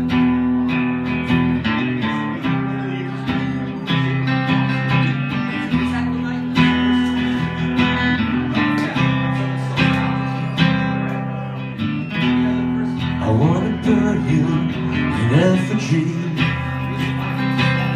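Acoustic guitar strummed, playing the instrumental intro of a song with ringing chords, with a few rising slides in the last third.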